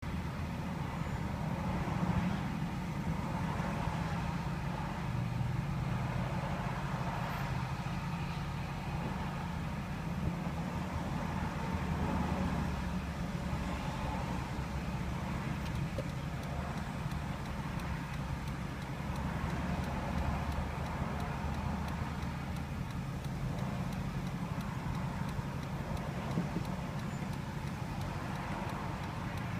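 Steady low rumble of idling and creeping cars in a traffic jam, heard from inside a car's cabin.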